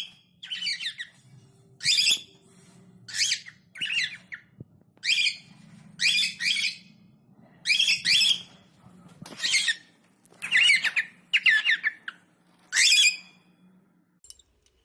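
A bird squawking loudly over and over: about fifteen short, harsh calls in quick succession, which stop about a second before the end.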